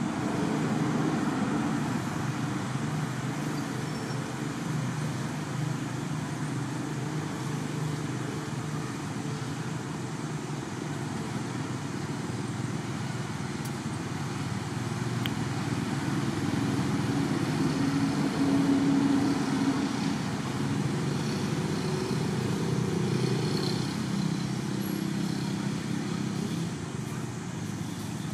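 Steady low rumble of road traffic, swelling to its loudest about two-thirds of the way in as an engine draws nearer, then easing off.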